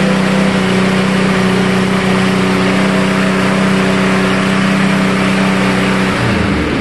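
Lawn mower's small petrol engine running steadily at high speed on a freshly replaced spark plug, then slowing down about six seconds in.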